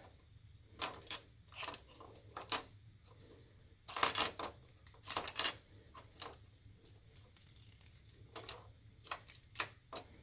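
Small plastic cabinet-lock parts and adhesive backing paper being handled: a scattered series of short clicks and rustles, the busiest patch about four to five and a half seconds in.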